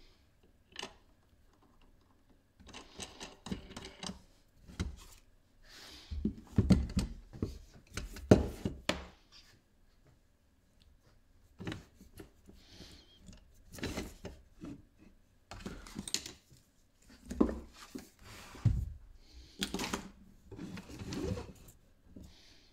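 Irregular clicks, knocks and rattles of small parts being handled and fitted by hand, in uneven clusters with short pauses.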